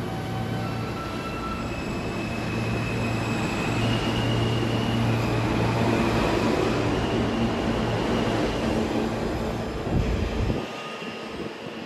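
New York City Subway R160B train running along the platform, a steady rumble of wheels on rail with its electric traction motors whining higher in pitch as it gathers speed. About ten seconds in the sound jumps to a quieter, more distant train rumble.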